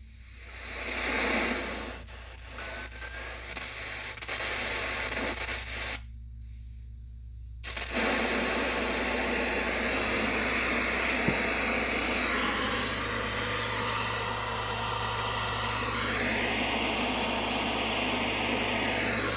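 Static hiss from a 1969 Zenith tube television's speaker, with a low mains hum under it. The hiss cuts out briefly about six seconds in, then comes back louder and steady.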